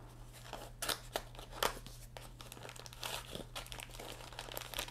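Plastic packaging crinkling and a cardboard box being handled as accessories are lifted out: an uneven string of rustles and light clicks, with the sharpest ones about a second in and around three seconds in.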